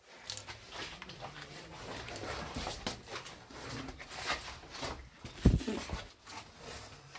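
Rustling and scraping of a caver's clothing and gear against rock while moving through a tight passage, with one heavy thump about five and a half seconds in.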